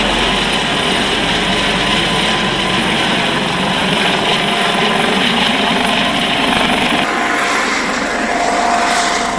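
Police rescue helicopter's rotors and turbine engine running steadily, the sound changing about seven seconds in.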